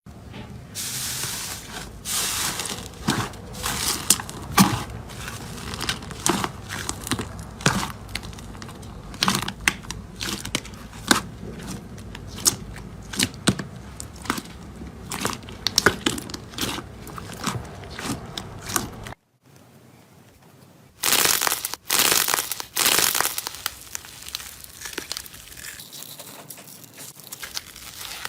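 Slime being squeezed and stretched by hand, giving a dense run of sharp crackling clicks and pops. The sound breaks off about two-thirds of the way in, then returns with a few louder crinkling squeezes before settling quieter.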